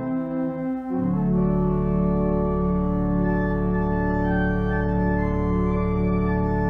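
Two-manual organ playing slow, sustained chords. About a second in, the chord changes and a deep bass note comes in beneath it and holds.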